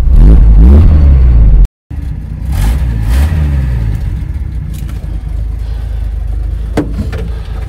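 1966 Ford F350's engine revving up as the truck pulls away, heard from inside the cab, rising in pitch twice as it accelerates. The sound drops out for a split second about two seconds in.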